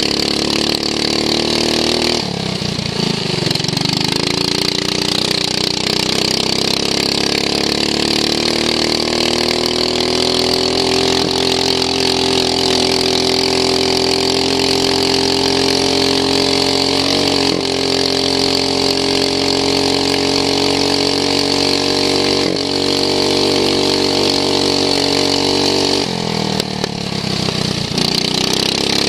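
Racing lawn mower's engine heard onboard, running hard at high revs. It eases off briefly about two seconds in and again near the end, then picks up again.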